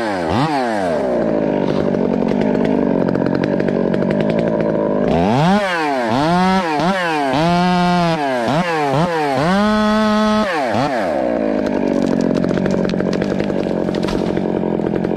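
Chainsaw running at full speed and cutting wood. In the middle it is revved up and down about six times, with a couple of held high notes, between steady, even stretches of cutting.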